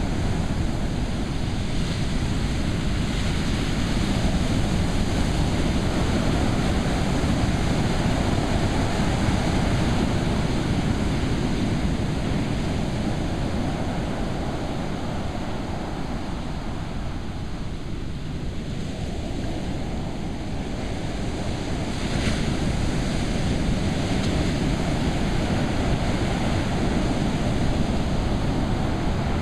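Ocean waves breaking and washing in steadily, with wind buffeting the microphone. The surf eases a little around the middle and then builds again.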